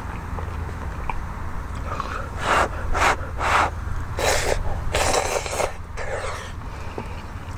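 A person slurping curry udon noodles and soup: several loud slurps in quick succession, starting about two seconds in.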